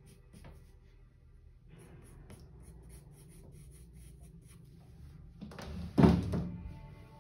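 Colored pencil scratching on paper in quick short strokes. Near the end comes a loud low rub and knock as the round drawing disc and paper are turned.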